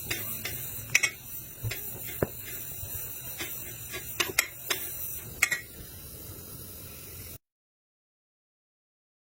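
Irregular sharp mechanical clicks and taps over a steady hiss, with a few louder knocks, cutting off to complete silence about seven seconds in.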